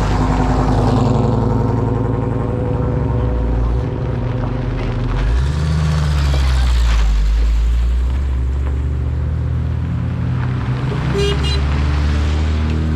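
Vehicle engine running steadily, its pitch shifting up and settling again about halfway through.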